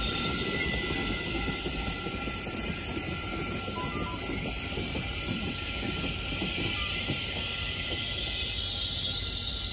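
Caltrain Stadler double-deck electric multiple unit rolling along the track past the station, its wheels rumbling on the rails under a steady high-pitched whine. The sound drops to a lower level about two seconds in as the train draws away.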